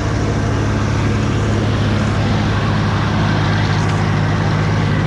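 Old tractor's engine running steadily at a constant speed.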